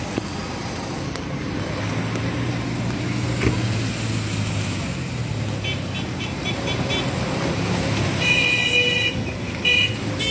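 Vehicle traffic in a flooded, muddy lot: an engine running steadily, then a horn tooting in a quick run of short beeps about six seconds in and a longer honk near the end.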